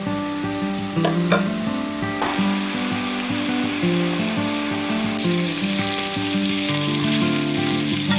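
Sausage patties sizzling as they fry in a skillet, the sizzle starting abruptly about two seconds in, over background music. A couple of light clicks come about a second in.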